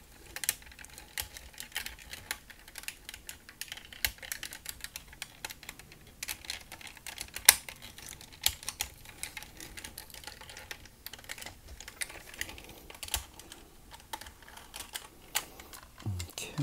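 Hard plastic parts of a Zeta Toys ZA-05 Racket transforming robot figure clicking irregularly under the fingers as panels are pressed and tabbed into place, with one sharper click about seven and a half seconds in.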